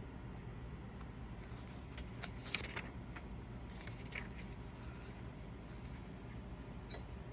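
Steady low background hum with a few soft clicks and light paper taps as the open notebook's pages are handled: a cluster about two seconds in, one around four seconds, and one near the end.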